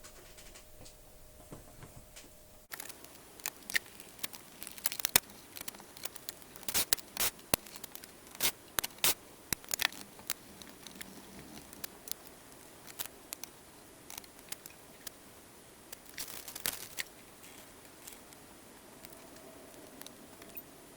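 Irregular small clicks, taps and scrapes of tools and metal parts being handled while the tape transport of a TEAC X-10R reel-to-reel deck is taken apart. It is quiet for the first few seconds, and the clicks come thickest in the middle.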